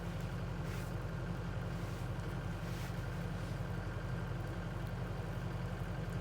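Skid steer engine running steadily at an even, unchanging speed with a low, fast pulsing note.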